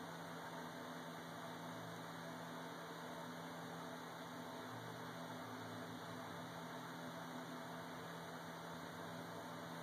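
Steady low hum under a faint even hiss, with no distinct events.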